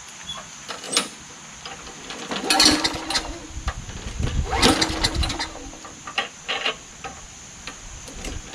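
Tecumseh small engine on a Craftsman mower cranked twice without catching, a short attempt and then a longer one, with a few clicks in between. It fails to start, typical of the clogged carburetor and water-soaked air filter found on it.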